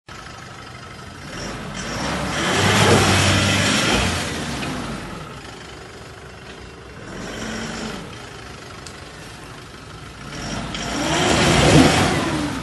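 Isuzu D-Max pickup's engine revved up and let fall back, with two strong revs, one about two seconds in and one near the end, and a short light blip in between.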